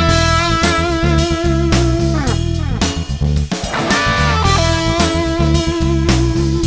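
Blues-rock intro song: an electric guitar lead plays long held notes with bends, over bass guitar and drums.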